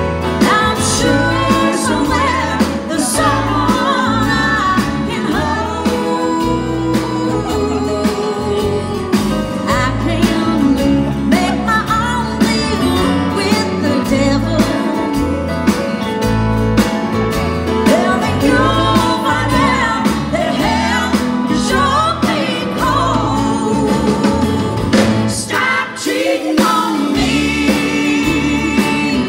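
Live country band playing a song: a woman sings lead into a microphone over electric guitar and drums. The low end drops out briefly near the end.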